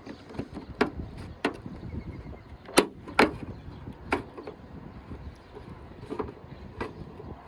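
Scattered sharp plastic clicks and light knocks, about eight in all, the loudest two close together about three seconds in, as the loosened decklid panel and its clips are handled on the trunk lid.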